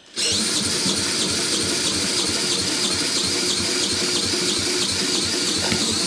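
Cordless drill spinning a Mountfield lawnmower's petrol engine over by its flywheel nut, in place of a broken pull cord. A steady high drill whine over a regular low pulsing as the engine turns over without starting.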